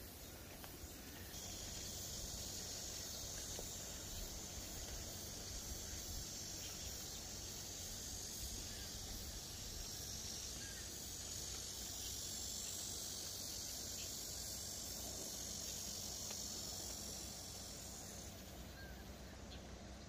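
Insects singing: a steady high buzz that starts about a second in and stops shortly before the end.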